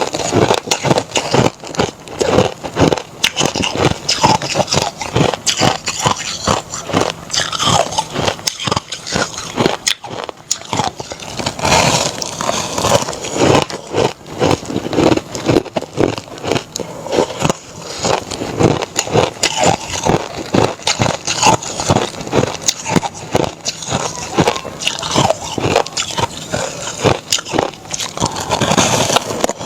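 Crushed ice packed into shapes, bitten and chewed close to the microphone: a continuous run of sharp, crackling crunches.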